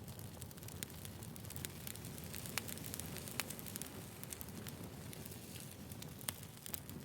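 Campfire burning: a steady low rumble of flames with frequent wood crackles and a few sharper pops.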